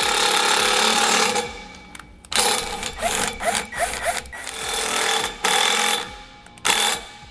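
Cordless drill/driver running in bursts: one long run at the start, then several shorter runs with pauses and a few short rising squeaks, driving a number 12 self-tapping screw into a metal frame member.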